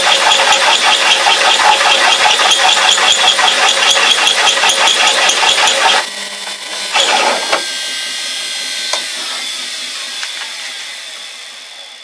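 A large twist drill in a belt-driven drill press, powered by a washing-machine motor, cutting through steel plate with a loud, dense, rhythmic chatter. About six seconds in, the cutting stops abruptly as the bit breaks through at the exit, where it snatches and the belt slips a little. A short burst of noise follows, then the drill runs on freely and grows quieter toward the end.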